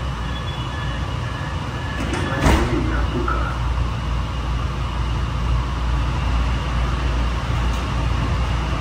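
Steady low rumble inside a Honolulu Skyline rail car running on its track, with a single clunk about two and a half seconds in, after which the rumble grows a little stronger.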